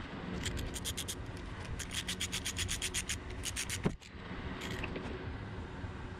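Socket wrench ratchet clicking rapidly and evenly, about seven or eight clicks a second, while loosening the bolts of the sacrificial anode cover on a Yamaha HPDI 250 outboard's cylinder head. The clicking stops suddenly about four seconds in, leaving a steady low background hum.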